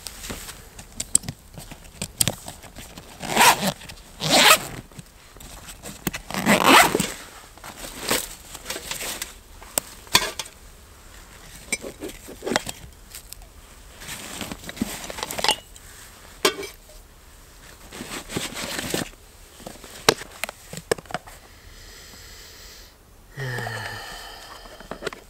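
Zippers on a Savotta Jääkäri XL rucksack being pulled open in a series of separate rasping strokes, with fabric and gear rustling as items are taken out of the pack. A short falling squeak comes near the end.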